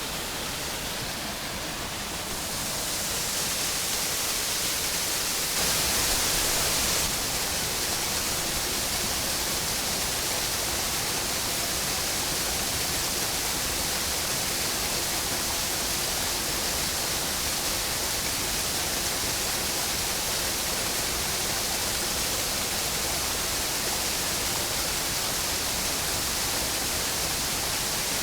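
Waterfall: a steady, loud rush of falling water, a little louder for about a second and a half around six seconds in.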